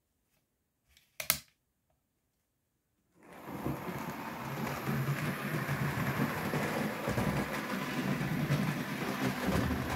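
Almost silent for about three seconds apart from one short click, then a Hornby OO gauge model locomotive (Cock of the North) running on track fades in: a steady mechanical running noise from its motor and wheels on the rails.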